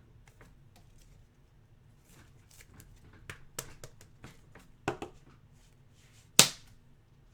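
Trading cards being handled and slid against one another: a run of soft clicks and rustles, with one sharp snap about six seconds in.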